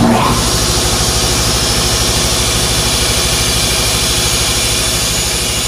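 EMAX Industrial Plus Silent Air 80-gallon electric air compressor starting up on its new 240 V hookup. It kicks on abruptly and runs steadily, with a rapid, even pulsing from the motor and pump.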